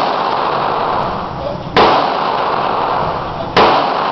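Semi-automatic pistol fired twice, a shot about two seconds in and another about a second and a half later. Each shot is sharp and followed by a long echo off the concrete walls of the indoor range.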